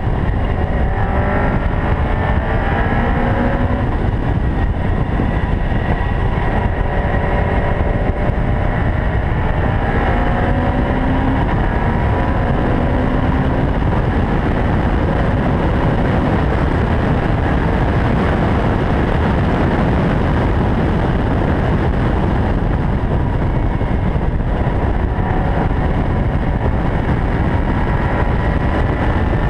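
Caterham R500 engine running hard at speed, its pitch climbing in repeated sweeps and dropping back between them as it revs through the gears, under a loud, steady rushing noise.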